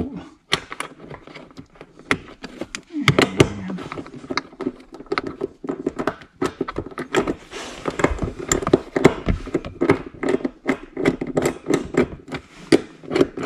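Irregular small metallic clicks and light knocks as the gas pedal assembly's 10 mm mounting bolts are worked loose and handled.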